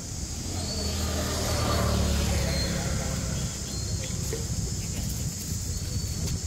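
A motor vehicle passing by: its engine rumble swells to a peak about two seconds in, then fades. Under it runs a steady high insect drone.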